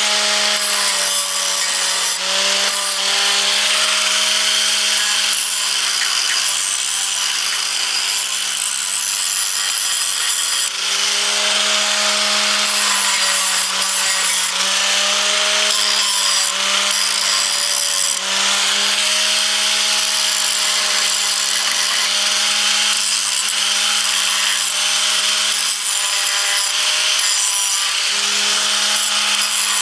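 Electric power tool motor running at high speed on metal, its pitch dipping now and then as it is pressed into the work, over a harsh steady hiss.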